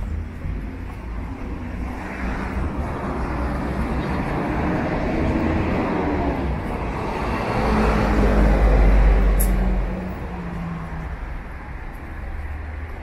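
A motor vehicle passing on the street, its engine hum and rumble building for several seconds, loudest about eight to nine seconds in, then dropping away quickly. A brief sharp click comes just before it fades.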